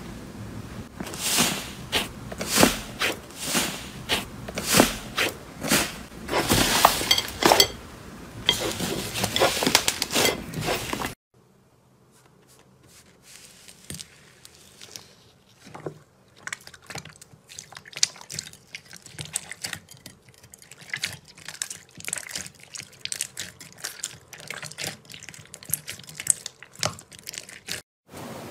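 Fingers pressing and kneading slime, giving a dense run of crackling, popping clicks. About eleven seconds in the sound cuts to quieter, wetter squishing with scattered small pops as a hand squeezes a clear-and-white slime.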